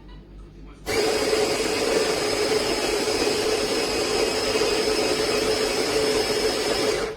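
AMZCHEF electric burr coffee grinder running, a steady motor whir with a constant hum. It starts abruptly about a second in and cuts off near the end.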